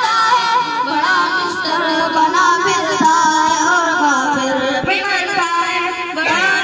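Boys singing an Urdu nazm (devotional poem) together into microphones, long held notes that waver and slide in pitch.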